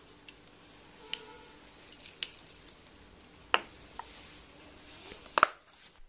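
Scattered small clicks and light rustling as chilli flakes are sprinkled by hand over a pizza on a steel plate, with a sharp double click near the end.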